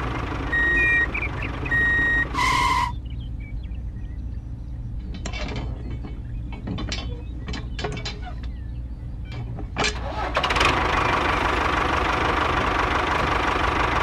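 Model tractor engine running with a reversing alarm beeping, cut by a short, loud two-note tone. The engine drops away, and small sharp clicks come from the metal bolt-and-ring hitch of the model tractor being unhooked by hand. The engine sound returns near the end, closing with another short two-note tone.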